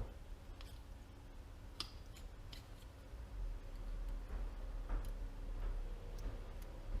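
Scattered light clicks and ticks of small metal parts being handled, over a steady low workshop hum, growing busier in the second half.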